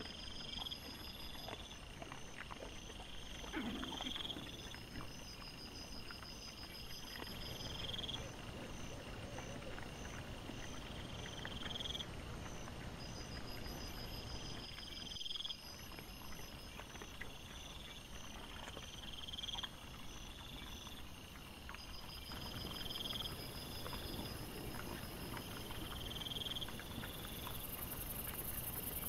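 Insects chirping at night in a steady, repeating pattern: a short rising high-pitched trill about once a second over faster pulsed ticking, with a low hiss and scattered faint clicks beneath.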